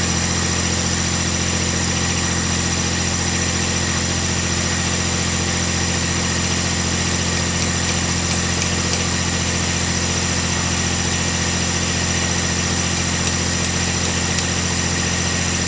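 Cub Cadet 1772 garden tractor's engine running steadily, its hydrostatic transmission set near neutral with the rear wheels off the ground.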